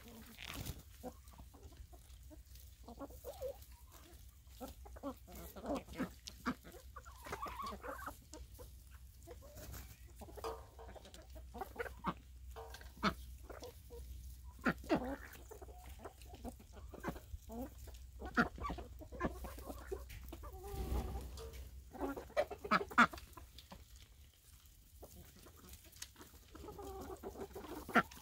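A flock of chickens clucking and calling as they forage, a steady scatter of short, overlapping calls.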